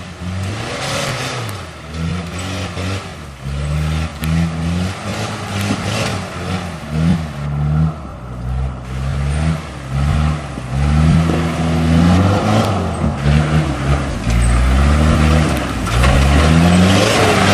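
Off-road 4x4's engine revving up and easing off again and again as it works up a rough trail climb, with a louder rushing noise building near the end.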